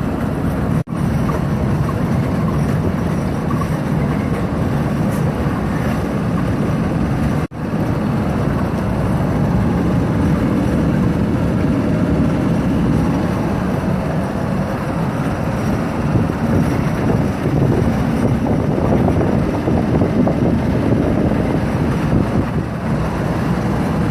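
Steady running noise of a moving vehicle, engine and road rumble, with wind buffeting the microphone. The sound cuts out for an instant twice.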